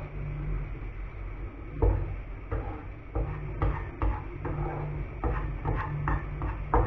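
Wooden spatula stirring diced onion and carrot frying in a pan, a run of short scrapes and taps against the pan, several a second, starting about two seconds in. A low steady hum runs underneath.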